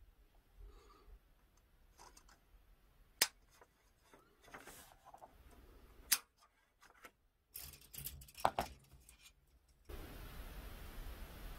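Side cutters snipping small plastic model-kit parts off the sprue: a sharp snip about three seconds in, another about six seconds in, then a quick run of clicks and snips around eight seconds. In the last couple of seconds a steady faint hiss comes in.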